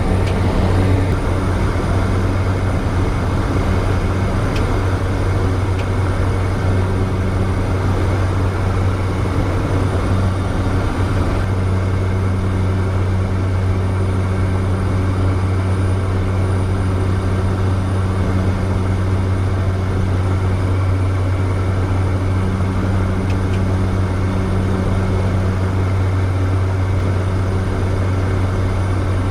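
Cessna 208 Caravan's turboprop engine and propeller running steadily: a constant drone with a strong low hum.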